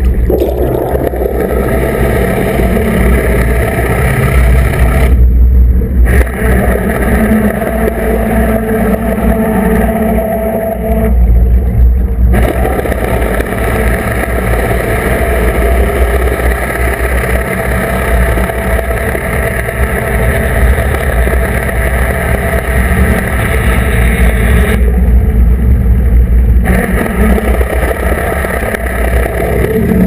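Twin Yanmar sterndrives running under joystick control, heard underwater beneath the hull: a steady engine and propeller drone with churning water. It swells a few times as the drives are worked.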